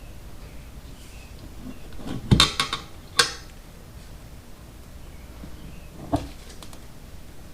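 Metal tire irons clinking against a motorcycle wheel rim as a tubed tire's bead is levered on by hand: a short cluster of clinks about two seconds in, a sharp clink about a second later, and another near six seconds.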